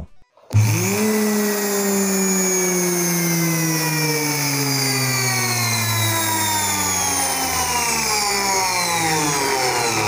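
Washing machine universal motor switched on about half a second in, spinning up with a brief rising whine. The whine then falls steadily in pitch as the motor slows.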